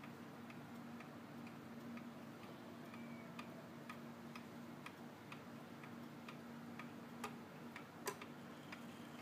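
Hermle wall clock's FHS 141-071 pendulum movement ticking faintly and evenly, about two ticks a second, over a steady low hum. Two louder clicks stand out near the end.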